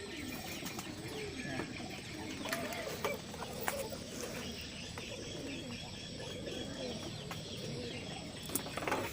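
Birds calling faintly in the background, with some faint distant voices.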